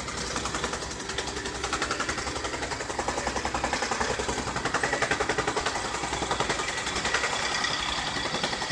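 Small gasoline compactor running with a rapid, even pulsing, over the steady idle of a mini excavator's engine.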